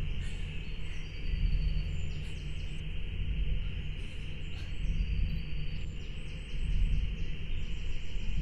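Outdoor ambience: small birds chirping in short, quick runs of notes over a steady hiss and a low, fluctuating rumble.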